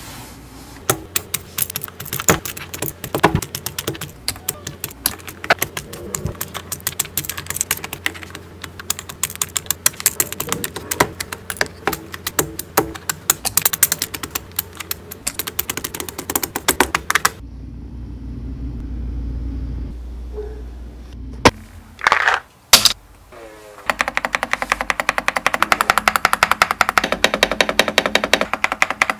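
Rapid typing on an Epomaker RT100 mechanical keyboard fitted with Wisteria switches, a fast run of clacking keystrokes. The typing breaks off for a few seconds around the middle, with a few loud single clacks, then resumes just as fast near the end.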